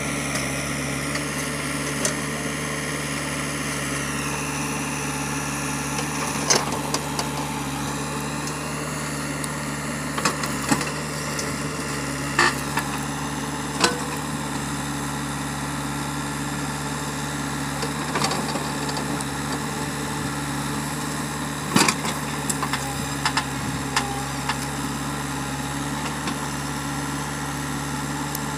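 JCB 3DX backhoe loader's diesel engine running steadily under digging work, with a scattering of sharp metallic knocks from the backhoe arm and bucket as it digs mud, the loudest about three-quarters of the way through.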